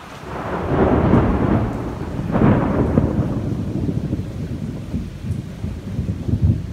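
Thunder rolling: the rumble builds about half a second in, swells again with a sharper crack around two and a half seconds, then rolls on as a lower, uneven rumble.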